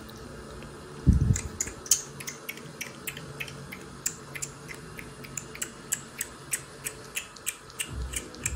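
Kitten suckling at a feeding bottle's nipple, making wet smacking clicks about three times a second. One low thump, the loudest sound, comes about a second in, just before the clicks start.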